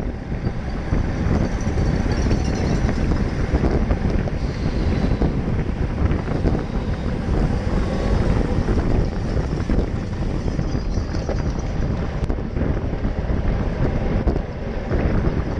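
Wind rushing and buffeting on the microphone of a bicycle-mounted action camera at race speed, about 20 to 30 mph: a steady, loud rumble with no break.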